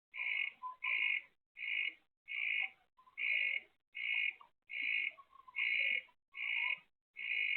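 An animal call repeating in a steady rhythm: about ten short calls, each under half a second, a little more than one a second.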